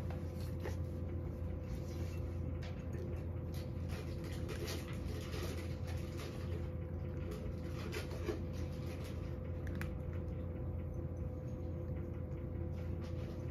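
A cat eating from a ceramic bowl: a run of small, irregular crunching and licking clicks over a steady low hum.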